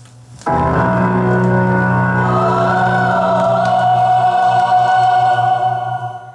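Music playing back from a vinyl LP on a Thorens TD165 turntable, heard through speakers: long held notes and chords. It starts abruptly about half a second in, after a faint low hum, and cuts off just before the end.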